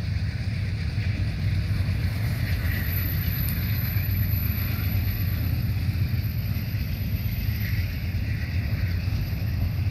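Union Pacific intermodal train's double-stack well cars rolling past, a steady rumble of wheels on the rails.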